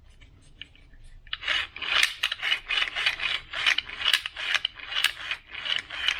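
Plastic gear train of a replacement BMW M6 throttle actuator being worked back and forth, a quick run of rasping, grinding strokes starting a little over a second in.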